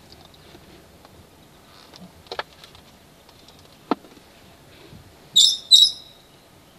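A bird gives two short, sharp, high calls about half a second apart near the end. Two fainter clicks come earlier, over a quiet background.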